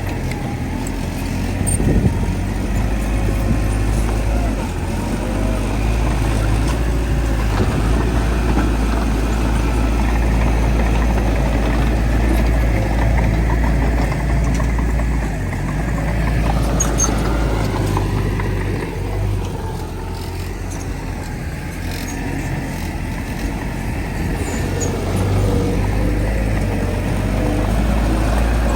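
Heavy diesel engines of a bulldozer and dump trucks running steadily under work, with a deep continuous engine drone. A single knock comes about two seconds in, and the sound eases off for a few seconds past the middle.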